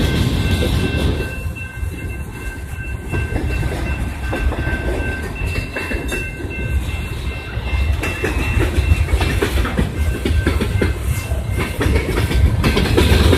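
A train passing close by: a loud low rumble with the clickety-clack of wheels knocking over rail joints, getting louder in the second half. A steady high tone sounds over the first half and then fades.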